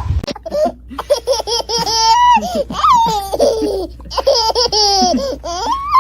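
Someone laughing hard and high-pitched, in quick pulsing bursts broken by long squealing notes that slide down in pitch.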